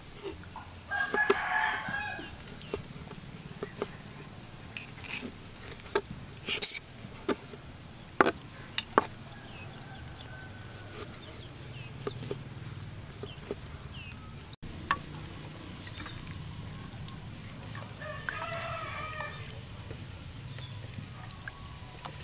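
A rooster crowing twice: a loud crow about a second in and a fainter one near the end. In between come a few sharp knocks of a knife chopping through grilled beef onto a plastic cutting board.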